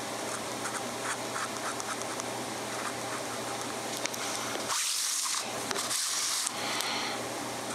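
Mabie Todd Swan 3220 fountain pen's 14-karat gold nib scratching faintly across paper in short strokes, over a steady low hum. About five seconds in come two louder hissing rubs, the second about a second after the first.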